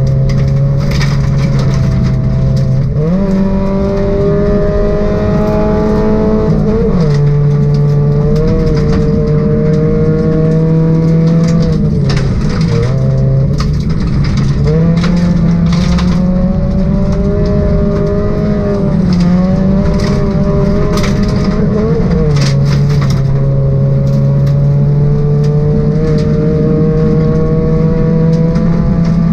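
Ford Focus V1600 rally car's 1.6-litre engine heard from inside the cabin, held at high revs along a gravel stage, its pitch stepping up and down every few seconds with gear changes and lifts. Gravel crackles and rattles against the underside throughout.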